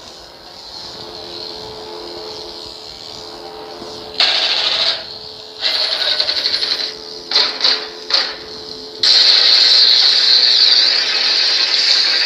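Sabermach Dark Storm lightsaber's sound board through its speaker: a steady low hum for the first four seconds, then loud swing effects in several short bursts, and from about nine seconds in a long, steady, loud effect held to the end.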